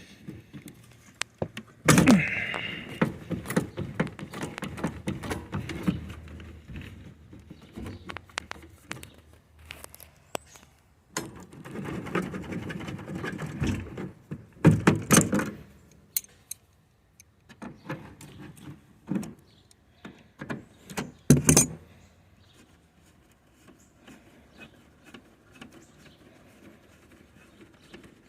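Hand tools and metal fittings rattling, clinking and knocking in irregular bursts while a refrigerator's propane gas line is unscrewed and disconnected. The loudest clatters come about 2, 15 and 21 seconds in.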